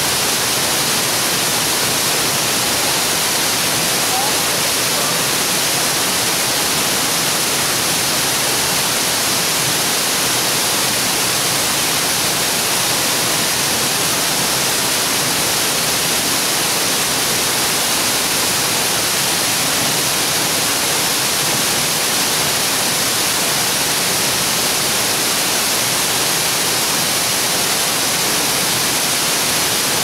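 Steady rush of falling water from a waterfall: an even hiss with no breaks or changes.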